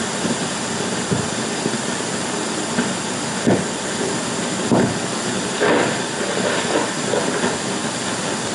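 Steady hiss of an old 16mm film soundtrack, with four dull knocks spread unevenly through it.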